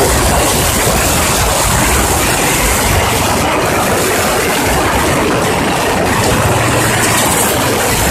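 Steady rumble and rush of a vehicle in motion, heard from on board as it drives along a paved road.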